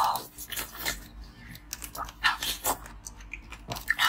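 Chunks of blue-coloured ice being bitten and chewed close to the microphone: a run of irregular, crisp crunches, several a second, loudest at the start and again just before the end.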